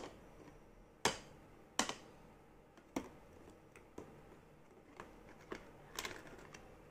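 Small hard plastic toy dishes and utensils clicking and tapping against each other and the plastic toy kitchen as they are picked up and set down: about eight sharp clicks, irregularly spaced around one a second.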